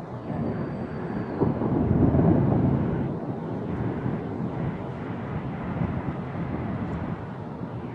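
Rolling thunder: a low rumble that swells with a sharp crack about a second and a half in, peaks soon after, then rumbles on, slowly fading.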